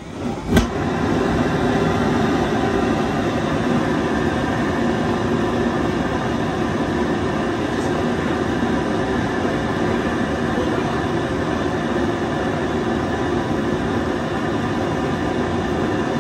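Homemade jet engine, a butane-canister combustion chamber with a tailpipe fed by a high-speed blower, lighting with a sharp pop about half a second in and then running with a loud, steady rushing roar of combustion.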